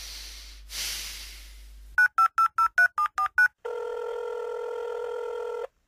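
A touch-tone phone being dialled: eight quick two-tone keypress beeps, then a steady ringing tone on the line for about two seconds that cuts off suddenly.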